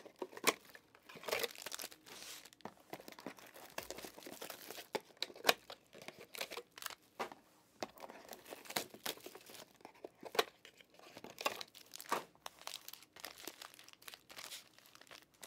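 Plastic wrap and foil trading-card packs being torn open and crumpled by hand: irregular crinkling and tearing crackles.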